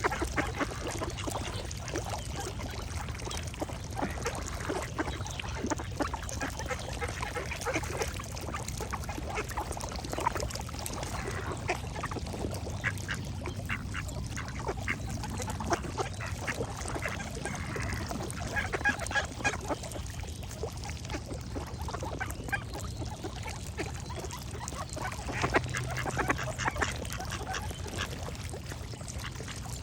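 Ducks quacking in repeated bursts of short calls, some stretches busier than others, over a steady low background rumble.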